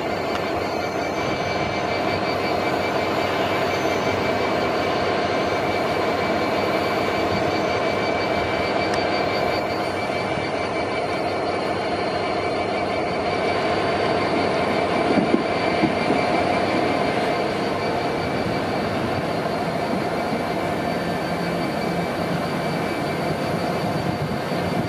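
A Class 321 electric multiple unit running into the station and slowing along the platform. Its wheels make a steady rumble on the rails under a steady high whine, with two sharp knocks about fifteen seconds in.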